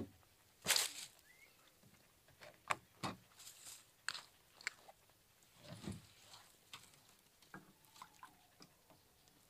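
Faint handling noise: scattered clicks, knocks and rustles of a plastic jug, its cap and a small metal cup being handled on dry leaves, with one louder knock just under a second in. Near the end the jug is tipped to pour gorosoe maple sap into the cup.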